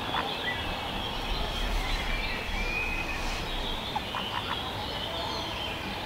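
Small birds chirping in the background, a running mix of short high calls, over a steady low hum, with a few soft clicks about four seconds in.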